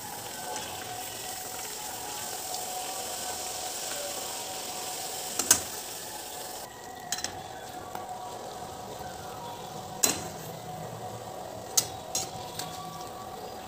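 Egg frying in hot oil in a pan: a steady sizzle that eases off about halfway through. A metal spatula clicks and scrapes against the pan several times, the sharpest knock about five and a half seconds in.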